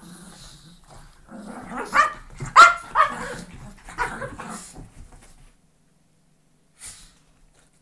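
Two Brussels Griffons play fighting, giving a string of short, sharp barks and yips from about a second and a half in, loudest around the middle and tailing off by about five and a half seconds. It is then quiet apart from one brief sound near the end.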